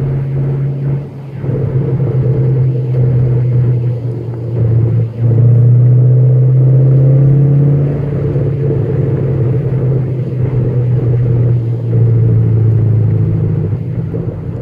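Dodge Challenger SXT's V6 engine heard from inside the cabin, running steadily at moderate speed. Its note dips and shifts pitch about a second in and again around five seconds in, then eases off near the end.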